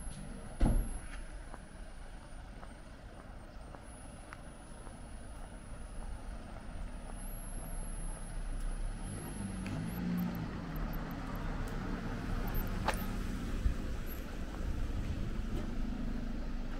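A motor vehicle's engine running nearby, growing gradually louder, with a sharp thump about a second in.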